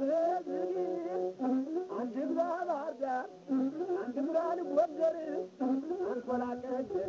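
Masinko, the Ethiopian one-string bowed fiddle, playing a melody of held notes joined by slides, in short phrases with brief breaks between them.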